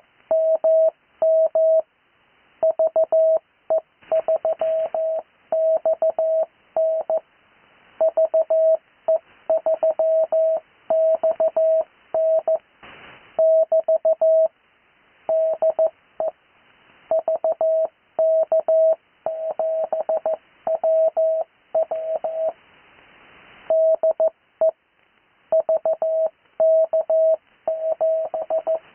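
Morse code (CW) on amateur radio: amateur call signs keyed as a single steady tone of about 650 Hz, in quick dots and dashes grouped into characters with short pauses between them, and faint radio hiss showing in the pauses.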